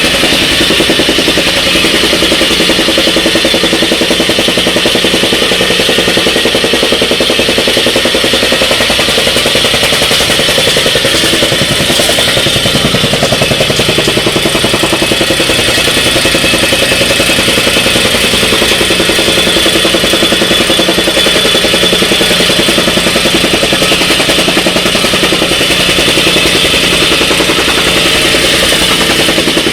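Jumping-jack tamping rammer running steadily, its small engine going while the foot pounds the ground in a fast, even, clattering rhythm.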